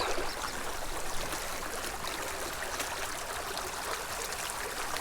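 Small spring creek flowing steadily over a broken, riffled surface: an even rush of running water.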